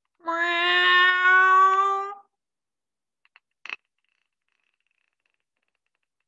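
A single long meow, about two seconds, holding one pitch and rising slightly at the end: the voice of a plush cat puppet. About a second and a half later come two faint clicks and then a short, sharper click.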